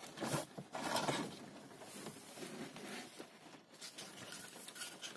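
Cabin air filter being slid out of its plastic housing behind the glovebox: the pleated filter rustles and scrapes against the plastic, loudest about a second in, then softer handling rustles.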